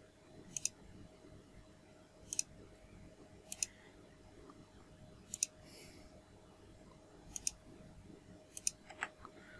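Computer mouse clicking: about seven short press-and-release clicks at uneven intervals while an arc is drawn in CAD software, over a faint steady hum.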